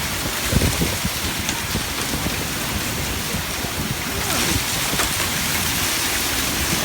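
Mini tornado: storm-force wind with driving rain, a steady rushing noise with gusts buffeting the microphone.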